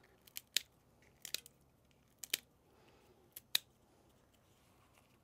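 Kitchen scissors snipping a dried ancho chile into pieces: a series of short, sharp snips, several in quick pairs, that stop about three and a half seconds in.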